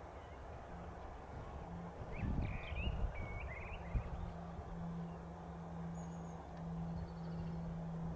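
Steady low noise of a distant Boeing C-17 Globemaster III's jet engines as it rolls along the runway, with a small bird chirping a few times about two seconds in, alongside a brief low rumble, and a single click about four seconds in.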